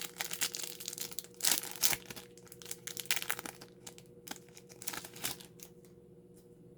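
Foil trading-card booster pack being torn open, its wrapper crinkling and crackling in quick irregular bursts that die down near the end.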